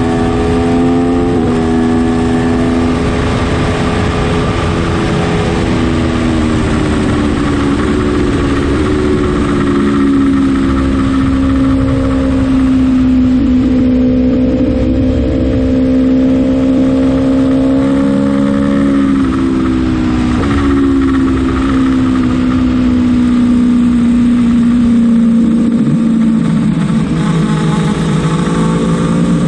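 Aprilia Tuono motorcycle engine running hard on a racetrack, its pitch rising and falling as the rider accelerates, shifts and slows for corners, over a steady rush of noise.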